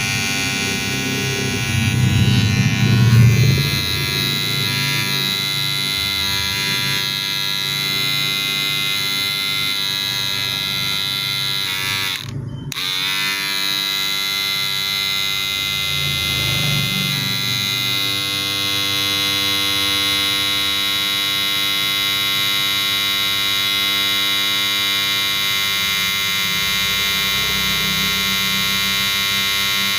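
Wahl cordless hair clipper running steadily, a buzzing hum at a constant pitch. The buzz swells louder a couple of seconds in and breaks off for a moment about twelve seconds in before carrying on.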